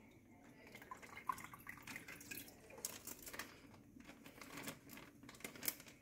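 Quiet crinkling of a thin plastic bag as guppies and their water are emptied from it into a plastic cup, with faint trickling and dripping.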